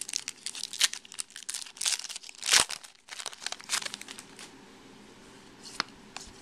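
Foil wrapper of a Topps Chrome baseball card pack crinkling in the hands while the chrome cards are handled, a run of sharp crackles. The crackling stops about four and a half seconds in, leaving only a single faint tick.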